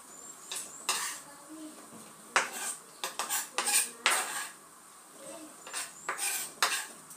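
Kitchen knife cutting a tomato on a wooden chopping board: a string of irregular knocks and clicks as the blade meets the board.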